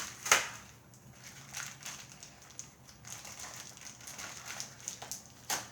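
Plastic toy packaging being handled and opened, crinkling and crackling with scattered clicks; a sharp crack about a third of a second in and another near the end.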